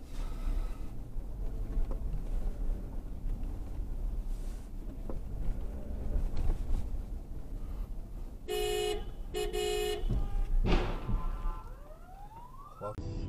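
Low road rumble inside a moving car, then two car horn blasts about eight and a half seconds in. A second or so later comes a short, loud hit as cars collide.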